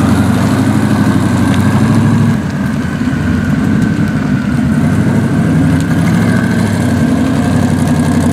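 Chevrolet Corvette's V8 exhaust running at low revs as the car pulls slowly away, a loud, deep, steady note that dips briefly about two and a half seconds in.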